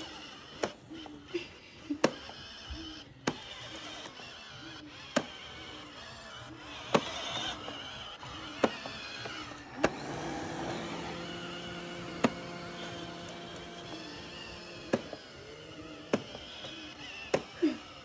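iRobot Roomba robot vacuum running with a steady whir, with about a dozen sharp clicks and knocks scattered through.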